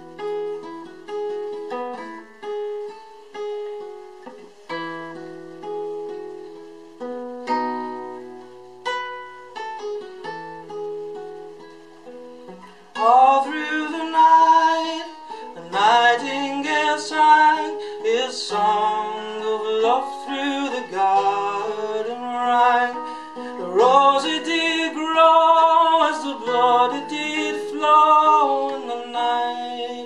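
Nylon-string classical guitar picked as a solo passage of separate ringing notes, then a man's voice comes in singing a folk song over it about 13 seconds in.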